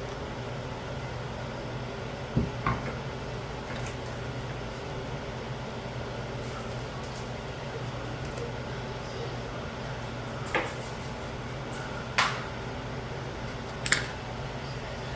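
A handful of short, light clicks and taps of small tablet parts and tools being handled on a work surface, two close together, then three more spread apart, over a steady low hum.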